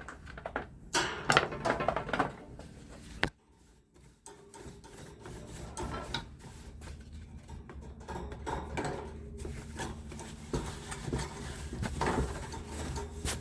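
Knocks, clicks and light clatter of fan parts being handled, over a low steady hum. The sound drops out for about a second a few seconds in.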